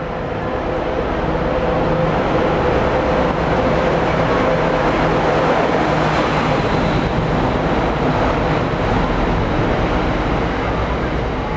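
A Class 60 diesel freight locomotive passing at line speed with its engine running steadily, followed by a long rake of open box wagons rolling over the rails. The noise builds over the first couple of seconds, is loudest about six seconds in as the locomotive goes by, then carries on as wagon rumble and eases near the end.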